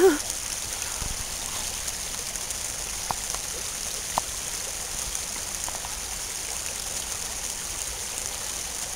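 Shallow stream running over rocks: a steady rush of water, with a couple of faint clicks.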